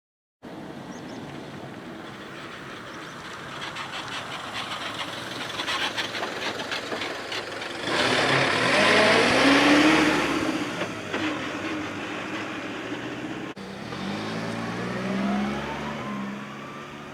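Motor vehicles passing close by: one loud pass building and fading over a few seconds, then after a short break another engine speeding up with a rising pitch.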